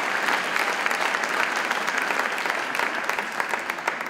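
A concert audience applauding, a dense patter of many hands clapping that thins out and fades near the end.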